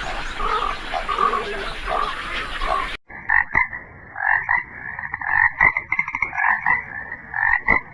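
Frogs croaking in repeated pulsed calls, in two separate recordings with a sudden change about three seconds in.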